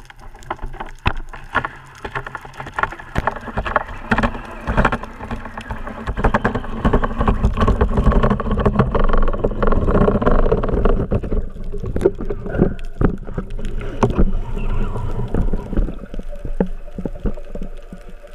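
Underwater water noise rushing against a camera housing mounted on a speargun, with many sharp clicks and knocks from the gun and shooting line being handled while a speared fish is brought in. It is loudest around the middle and thins out near the end.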